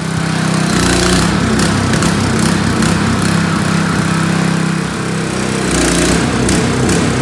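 Hydraulic power unit running steadily, driving the PumpTrax well pump puller's stacked hydraulic drive heads; the level dips briefly about five seconds in.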